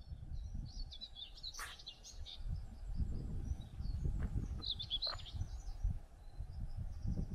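Small birds chirping in short high twittering phrases, once about a second in and again around five seconds in, over a continuous low rumble.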